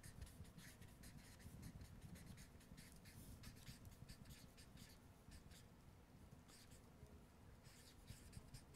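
Faint marker pen strokes on flip-chart paper: many short squeaks and scratches as letters are written one after another.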